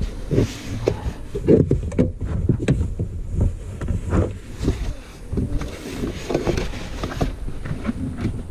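Irregular knocks, clicks and rustling of close handling: a test light being worked over the fuses in a car's under-dash fuse box.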